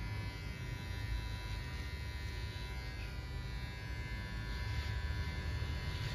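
Electric hair clipper buzzing steadily as it cuts hair over a comb.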